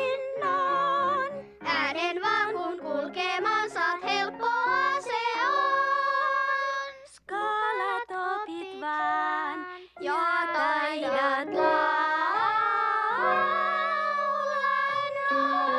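Wordless vocalise from a woman and a little girl singing together with vibrato over a piano accompaniment. Their voices glide upward about two-thirds of the way through and settle into a long held high note.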